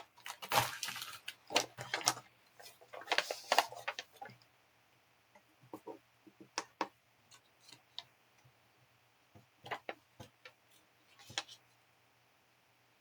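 Packaging handled and rustled for about four seconds, then a few scattered light clicks of hard plastic coin capsules being picked up and set down.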